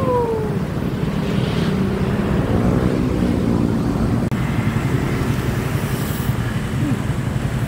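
Steady road traffic of cars and motorbikes with wind rushing over the microphone, heard from a moving bicycle. A short falling whoop sounds right at the start.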